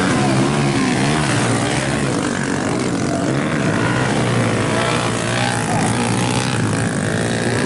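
Several small motorcycle engines revving together as the bikes plough through mud, their overlapping buzzing notes rising and falling.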